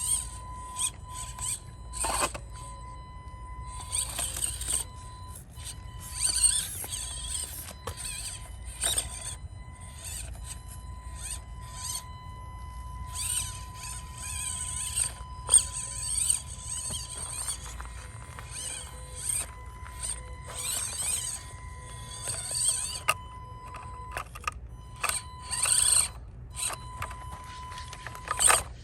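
Axial SCX24 Deadbolt 1/24-scale mini crawler's small electric motor and gears whining in short stop-start bursts of throttle as it crawls, with pauses between.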